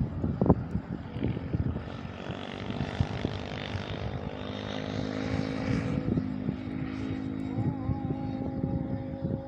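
Strong wind buffeting the microphone over a steady, droning background hum. From about seven and a half seconds a distant chanted call to prayer comes in over a loudspeaker, its voice wavering over a held note.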